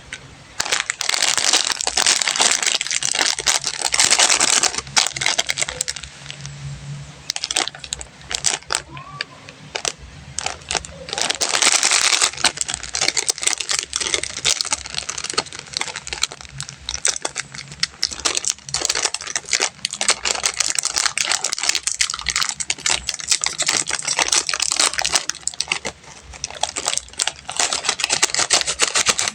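Plastic candy wrappers crinkling and crackling as sweets are unwrapped by hand, in dense runs of crackle with short quieter lulls about five to seven seconds in and again around ten seconds.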